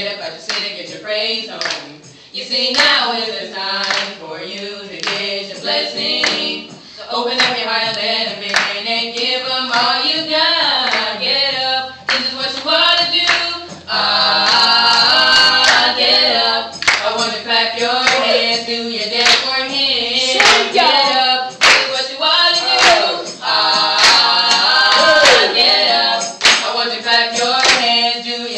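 Small vocal trio of two women and a man singing together into one microphone, with no instruments playing, and hand claps sounding along with the song.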